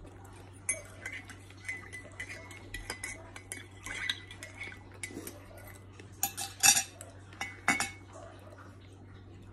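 Metal spoon stirring in a ceramic coffee mug, clicking and clinking against the inside with a light ring. A few louder clinks come between about six and eight seconds in.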